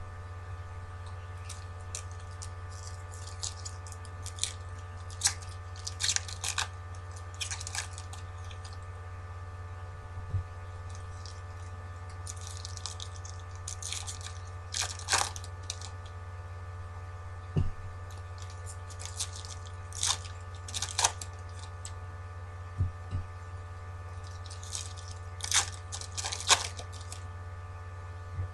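Thin foil wrappers of trading-card packs crinkling and tearing in short scattered bursts as packs are ripped open and the cards handled, over a steady electrical hum.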